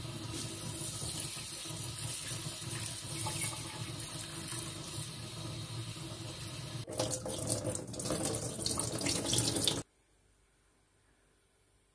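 Kitchen tap running into a bowl of bulgur in a stainless steel sink, the water splashing onto the grain. It gets louder and rougher about seven seconds in, then stops suddenly, leaving near silence.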